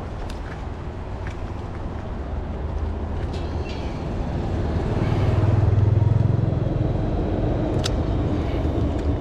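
Small motorbike engine growing louder as it approaches along the walkway, passing close about six seconds in, then fading.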